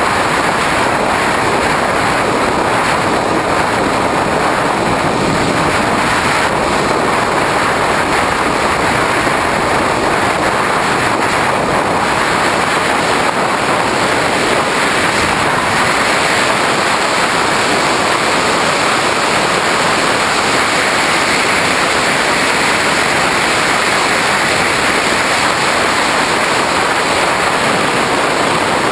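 Steady loud rush of airflow and a powered electric motor and propeller, heard through the onboard GoPro Hero2 of a Skywalker 1900 FPV plane in flight. The sound holds even throughout, with no clear engine pitch standing out of the rush.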